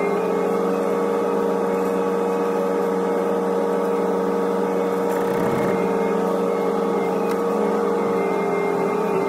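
Hitachi ZX125W wheeled excavator's diesel engine and hydraulics running under work, heard from inside the cab: a steady drone with a constant whine, dipping briefly in pitch about five seconds in as the tiltrotator bucket is swung and tipped.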